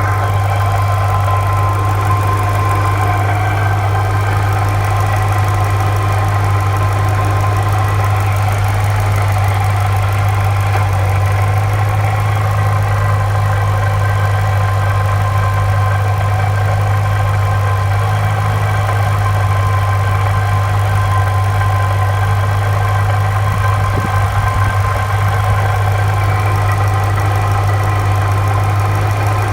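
Ford Mustang engine idling steadily, with a rattling noise from its Saleen supercharger.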